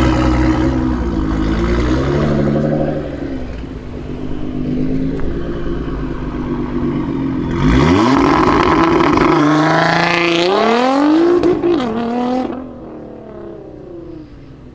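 Straight-piped, tuned 2017 Nissan GT-R R35's twin-turbo 3.8-litre V6 revving up and down at a standstill, then launching hard about eight seconds in. The engine note climbs steeply through the gears, dropping at each upshift, then fades as the car pulls away.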